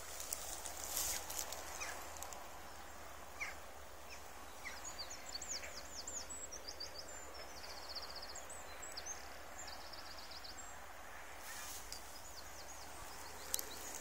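A small songbird singing: a quick run of high, downward-slurred notes and rapid trills, starting about four and a half seconds in and lasting about six seconds, over a steady faint outdoor hiss.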